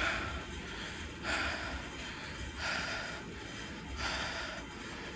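A person breathing heavily close to the microphone, a breath about every second and a third, over a steady low rumble.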